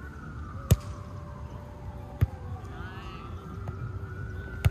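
A volleyball struck by hand three times in a rally: a loud, sharp slap of the serve about a second in, then two lighter hits, one about halfway through and one at the very end.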